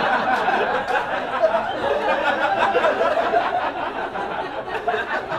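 Audience laughing together, easing off a little toward the end.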